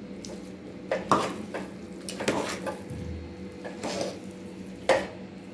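Steel spoon stirring and mashing thick, soft ven pongal in an aluminium pressure-cooker pot: about half a dozen irregular scrapes of metal against the pot, over a steady low hum.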